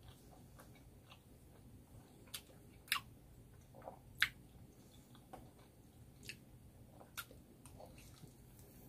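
Close-miked mouth sounds of a person eating saucy noodles: quiet wet chewing with several short, sharp smacks and clicks, the loudest about three and four seconds in.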